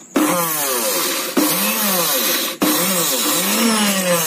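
Mixer grinder's newly fitted motor running at speed with sandpaper pressed by hand against the spinning drive end, sanding down a coupling that fits too tight. It is a loud hiss with a pitch that swings up and down over and over, and it cuts out for an instant twice before carrying on.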